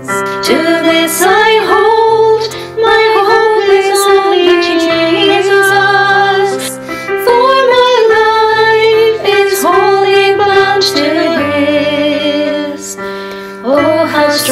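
A worship song: a woman singing held, wavering notes over sustained instrumental accompaniment with bass.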